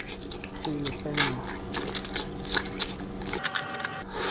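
Close-up chewing and wet mouth clicks of someone eating, a quick run of small clicks throughout, with a short low hummed 'mm' about a second in.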